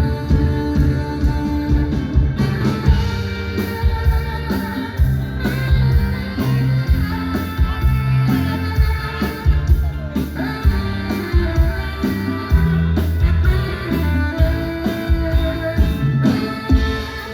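Live band playing, with drum kit and electric guitar.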